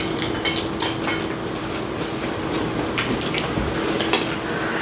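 Chopsticks and spoons clinking against bowls and the hot pot, a scatter of light clicks, over the steady bubbling hiss of the simmering broth and a faint low hum.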